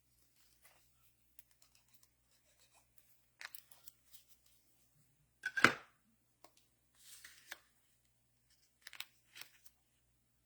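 Paper and card stock being handled on a table: scattered small taps and clicks, one sharp knock about halfway through, and a short rustle of paper a little later.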